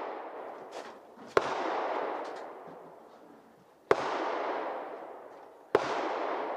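Three shots from a Kel-Tec SU-16 Charlie, a .223 semi-automatic rifle, about two seconds apart. Each is a sharp crack followed by a long echo that fades over a second or two. The echo of one more shot is dying away at the start.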